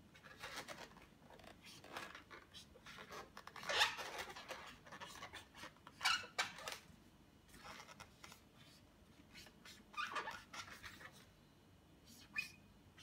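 Latex balloon squeaking and rubbing as a felt-tip marker draws lines across it and hands grip and turn it. The squeaks come in irregular short bursts, the strongest about four, six and ten seconds in.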